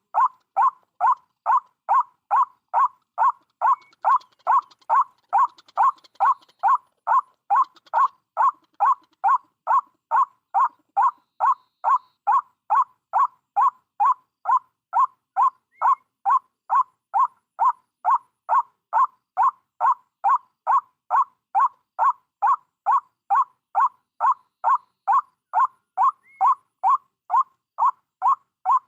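White-breasted waterhen's call played as a trapping lure: one short, pitched note repeated at a perfectly even rate of about two a second.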